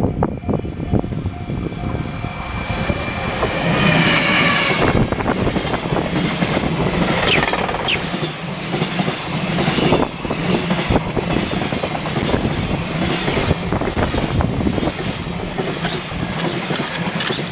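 A train passing the level crossing: a steady loud rumble with rapid wheel clatter on the rails and brief high squeals from the wheels.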